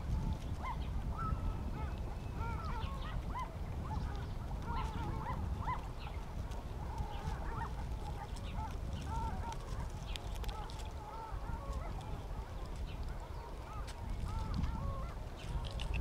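A chorus of waterfowl giving many short, overlapping honking and quacking calls, over a steady low background rumble.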